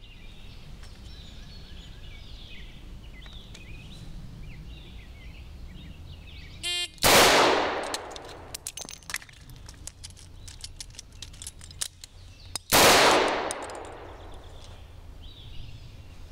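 A shot-timer beep, then a shot from a stainless Smith & Wesson Model 66 double-action revolver about seven seconds in. Light metallic clicks and clatter follow as the cylinder is opened, the spent cases are ejected and a speed loader is used. A second shot comes about six seconds after the first. Birds chirp before the first shot.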